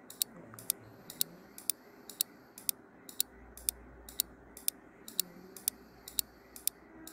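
Clock-like ticking of a quiz countdown-timer sound effect, even and steady at about two ticks a second.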